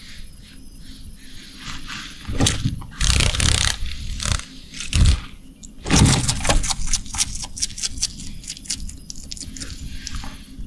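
A bearded dragon chewing a large dragonfly, its body and wings crackling in the jaws: a few loud crunches in the first half, then a run of quick, dry clicks.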